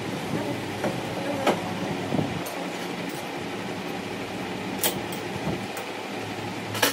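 Steady machine hum with a few sharp clicks, the loudest near the end.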